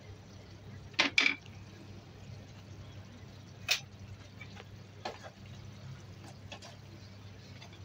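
Twisted dough sticks bubbling and sizzling in a nonstick frying pan, with a faint steady hum under it. A wooden spatula knocks against the pan twice in quick succession about a second in, the loudest sounds, then a few more single knocks as the sticks are turned.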